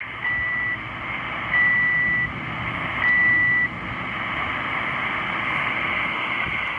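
Extremely slow Morse code on 7211 kHz heard through a shortwave receiver: three steady high beeps, each about half a second or more long, over a constant hiss of band noise. The last beep ends about three and a half seconds in, and only the hiss follows.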